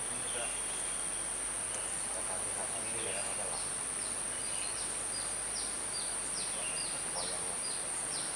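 Cicadas droning steadily at a high pitch. Over the last three seconds a bird calls in a quick run of short falling notes.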